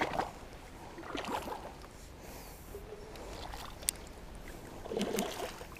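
Faint, scattered water sloshing and lapping close by, with cloth rubbing over the microphone and a short louder slosh about five seconds in.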